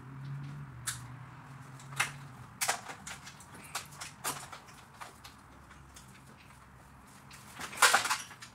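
Scattered metallic clanks and knocks of hand tools and parts being handled in a car's engine bay under a hoisted engine, the loudest clatter near the end.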